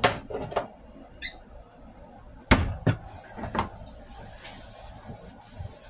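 Sharp knocks and clicks of seasoning containers and bottles being handled and set down on a kitchen counter: a quick group of three at the start, then three more about halfway through.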